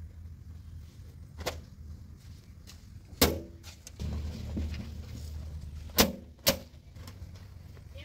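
Cloth rubbing over the sheet-metal bonnet and grille of a Mahindra Yuvo Tech+ 405 DI tractor, with a few sharp knocks and a steady low hum underneath.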